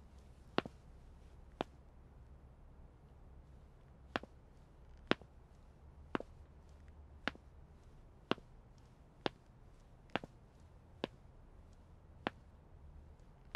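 Slow footsteps on a hard wooden floor: sharp single clicks about one a second, with a pause of about two and a half seconds after the first two steps.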